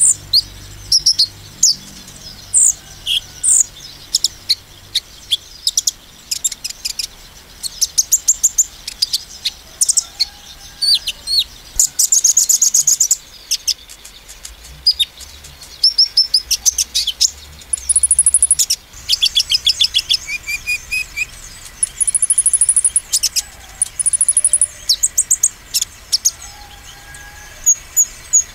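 Male copper-throated sunbird (kolibri konin) singing hard: quick bursts of rapid high-pitched trills and sharp chirps with short gaps, and a few clear held whistles in the second half.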